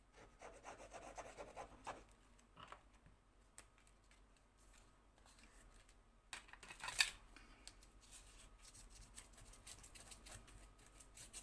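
Faint rubbing and scraping of card stock as hands press down and smooth a freshly glued panel of brown card. Two louder short scrapes come about six and seven seconds in.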